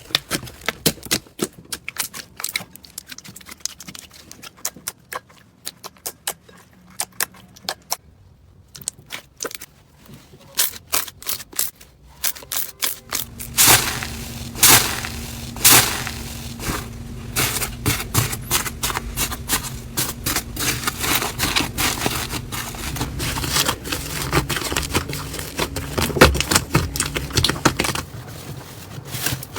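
Slime being squeezed and poked by hand, giving a run of sticky clicks and crackling pops, sparse at first and then louder and denser from about halfway through, with a steady low hum underneath.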